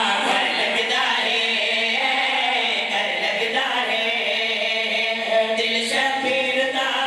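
Group of men chanting a noha, a Shia mourning lament, together into microphones, amplified over a PA, in long drawn-out held notes.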